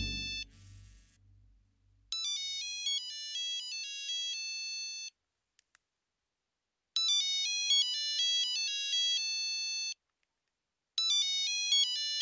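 Mobile phone ringtone: a short electronic melody of quick stepped notes, played three times with silent pauses between, the last cut short as the phone is answered. Background music fades out in the first half second.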